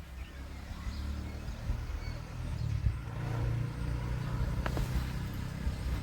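An engine running with a low, steady hum, and a single sharp click about four and a half seconds in.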